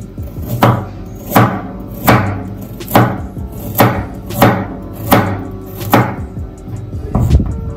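A kitchen knife slicing a raw carrot into rounds, each stroke cutting through and knocking on a wooden cutting board. The chops come steadily, about one every three-quarters of a second, eight or nine in all.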